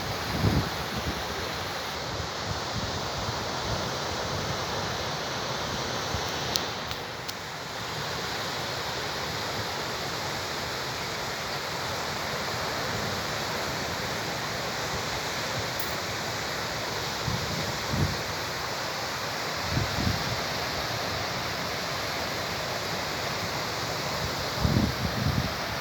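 Sea surf washing ashore as a steady rush, with wind buffeting the microphone a few times in the second half.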